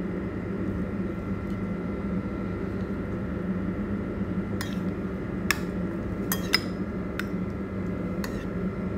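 Several sharp clinks of a utensil against a bowl, starting about halfway through, as chicken strips are turned in marinade, over a steady background hum.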